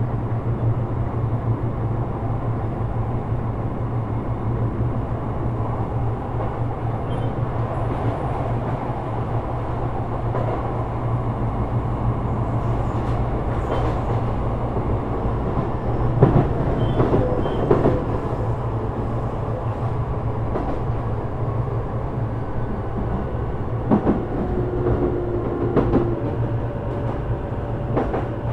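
Running noise inside a Sotetsu 12000 series electric train cruising at steady speed: a constant low rumble of wheels on rail, with a few sharp clacks, mostly in the second half.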